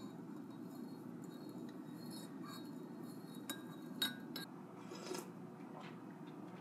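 Metal spoon stirring in a ceramic bowl, clinking lightly against the side a few times, the sharpest clink about four seconds in, over a faint low hum.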